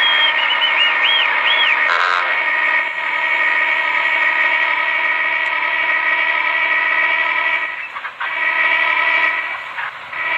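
Multi-tone horn blowing a long held chord, with a warbling high tone over it for the first couple of seconds. It breaks off briefly about eight seconds in, sounds again, then fades near the end.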